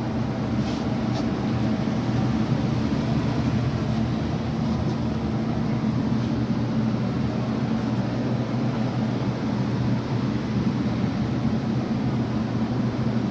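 Steady low mechanical hum under an even rushing noise, with two faint clicks about a second in.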